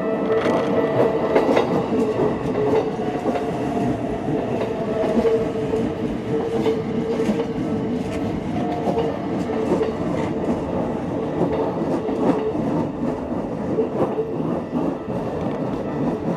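Keikyu electric train running through a level crossing, wheels clattering over the rail joints, with the crossing's warning bell ringing over it.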